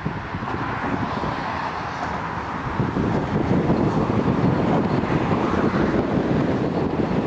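Road traffic and an electric subway train running across a bridge. A steady rumble of wheels and tyres grows louder about three seconds in as the train draws nearer.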